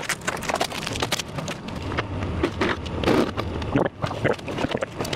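Irregular knocking, scraping and rattling as a large kitchen appliance is manhandled into place by the delivery crew.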